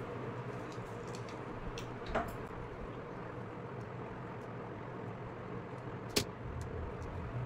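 Two short knocks and a few faint ticks from a hot glue gun and thin wooden sticks being handled on a work surface, over a steady low hum. The second knock, about six seconds in, is the louder.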